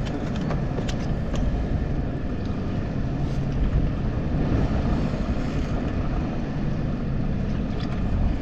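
Boat's outboard motor running steadily as a low rumble, with a few light clicks in the first second or so.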